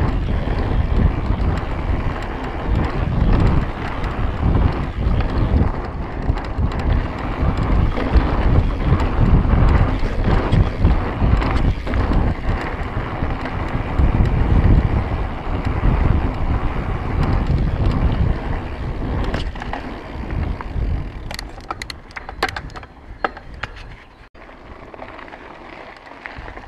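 Mountain bike rolling fast down a dirt trail: a heavy, gusting rush of wind on the microphone over tyre rumble and the rattle of the bike. A run of sharp clicks and rattles comes about three-quarters of the way through, and the sound drops quieter near the end.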